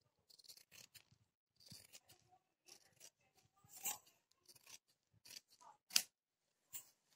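Scissors cutting through folded saree fabric in a run of short, faint snips, the loudest about four and six seconds in.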